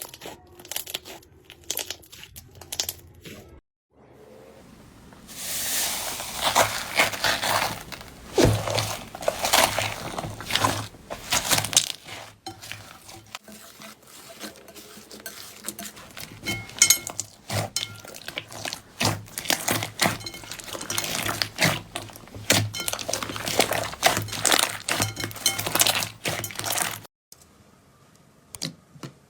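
Slime being squeezed, pressed and poked by hand, giving dense crackling, clicking and popping. The sound breaks off and resumes about four seconds in, and drops away near the end as the clips change.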